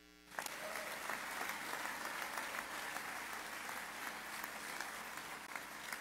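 An audience applauding, the clapping starting abruptly just after the start and easing off slightly near the end.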